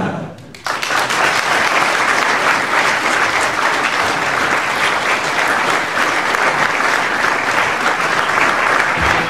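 Audience applauding, breaking out suddenly under a second in and holding steady and loud.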